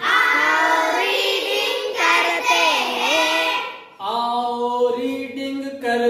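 A class of children reading words aloud in unison, in a drawn-out, sing-song chant, with a brief break just before four seconds in.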